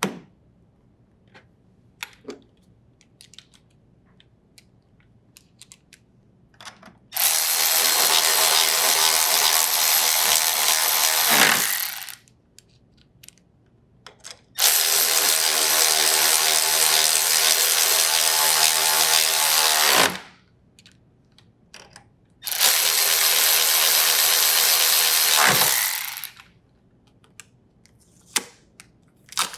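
A drill driver with a 10mm socket runs in three bursts of four to five seconds each, driving down the refrigerator's hinge bracket bolts. Light clicks and taps come between the bursts.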